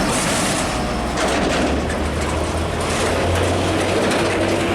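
Water spraying with a steady hiss, over a steady low motor hum.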